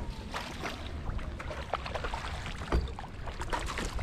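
Water splashing and dripping around a kayak in small, irregular splashes, over a low steady rumble.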